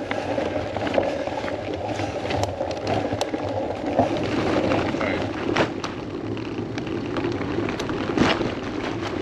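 Bicycle rolling along a trail on a climb: a steady rolling rumble of the tyres, with scattered sharp clicks and knocks from the bike.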